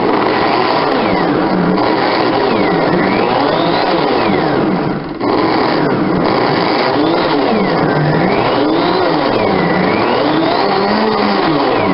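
Blendtec Classic 560 blender motor running on pulse with a cup of water and a drop of dish soap in the jar, the self-cleaning step. The pitch wavers up and down as the soapy water churns, with a brief dip about five seconds in.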